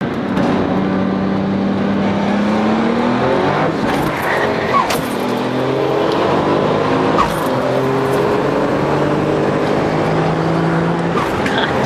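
Two race cars, a twin-turbo Toyota Supra and a supercharged Ford Mustang V8, accelerating hard side by side. The engines rev up and drop back at each gear change, about three shifts in all.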